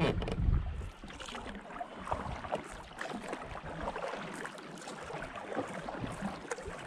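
Kayak paddle strokes: the blade dipping, splashing and dripping in slow river water, with many small splashes and drips. A louder low rumble fills the first second.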